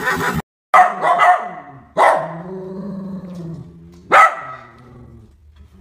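A puppy barking three times, short yaps about a second or two apart, each trailing off. It follows the cut-off end of a horse's whinny.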